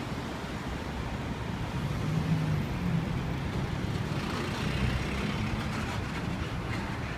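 City road traffic: cars and buses driving past, a steady rumble of tyres and engines, with an engine hum growing louder about two seconds in and fading near the end.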